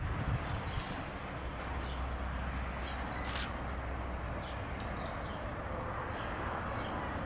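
Birds chirping in short calls over a steady outdoor background with a low hum underneath.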